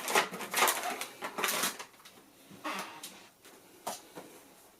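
Handling noise of computer parts and their packaging: a quick run of clicks and rustles in the first second and a half, then a few scattered knocks.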